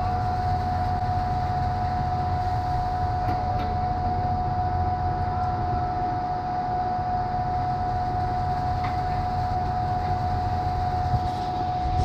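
Heavy diesel engines of concrete mixer trucks and a concrete pump running steadily: a low rumble with a constant high whine on top.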